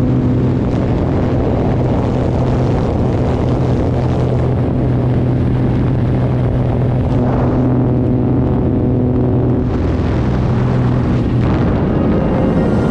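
Single-engine light aircraft's engine and propeller droning steadily at jump altitude, with rushing wind from the open door.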